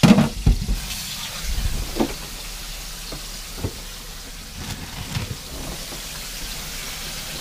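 Kitchen handling noises: a sharp knock at the start, then scattered clunks and rattles as a refrigerator is opened and a plastic bag of carrots pulled out, over the steady hiss of chicken frying in oil.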